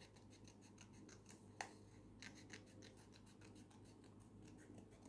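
Small scissors snipping through thin craft paper: a run of faint, short cuts, with one sharper click about a second and a half in.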